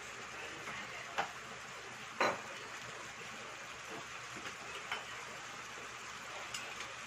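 Vegetables and pineapple-syrup sauce heating in a frying pan: a steady low sizzle with a few sharp pops, the loudest about two seconds in.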